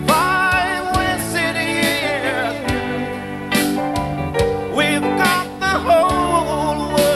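A male vocalist singing long, wavering notes into a microphone, backed by a live band with electric guitar.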